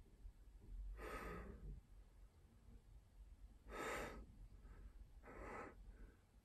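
Three short, quiet breaths out, the second the loudest.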